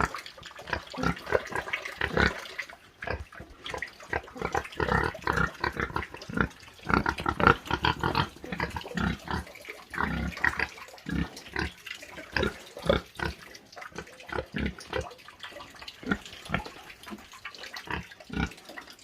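Pigs grunting in many short, irregular grunts, coming thick and fast around the middle and sparser towards the end.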